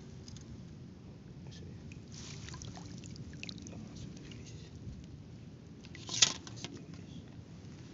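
Water sloshing and trickling, with scattered small splashes and one sharp, loud sound about six seconds in.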